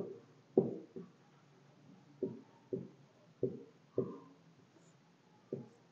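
Marker writing on a whiteboard: about eight short, separate strokes.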